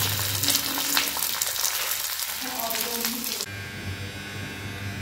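Shami kebabs, fried from frozen, sizzling and crackling in hot oil on a flat griddle. The sizzle cuts off suddenly about three and a half seconds in, leaving a quieter steady hum.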